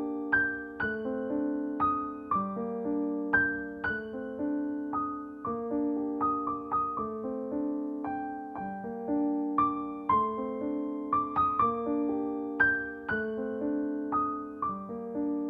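Background piano music: a gentle melody of single notes, about two a second, over held lower notes.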